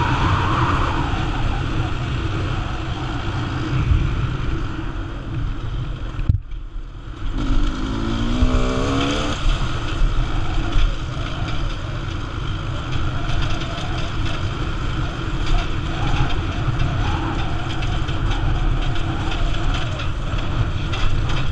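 2013 GasGas EC300R 300cc two-stroke enduro motorcycle engine running as the bike is ridden on a dirt track. About six seconds in the throttle closes briefly and the sound drops, then the engine revs back up with a rising pitch and carries on.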